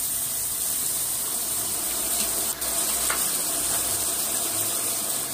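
Shredded cabbage, carrot, capsicum and boiled peas frying in hot oil in a large pot: a steady sizzle, with a couple of faint clicks about halfway through.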